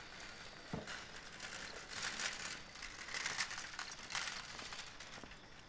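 Footsteps on a cobbled street, an irregular gritty scuffing with a sharp knock about a second in.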